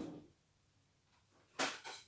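A short sharp clatter, as of something handled or set down on a table, about one and a half seconds in; quiet before it.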